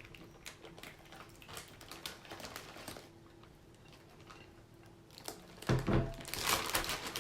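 Plastic bag rustling with small clicks of kitchen handling as the marinade sauce is put into the bag, with a louder burst of rustling and handling near the end.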